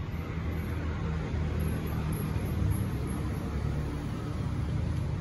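Steady low rumble with a hiss above it: background noise, with no distinct event standing out.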